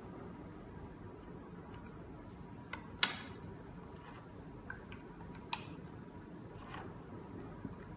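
Sharp plastic clicks and taps from handling the base of an automatic soap dispenser as its battery cover is taken off and batteries are fitted into the compartment. About six separate clicks, the loudest about three seconds in.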